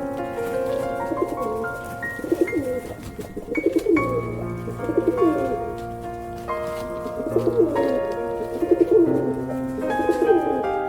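Low, short, curving bird calls repeating about once a second, like cooing, over background music of sustained keyboard notes.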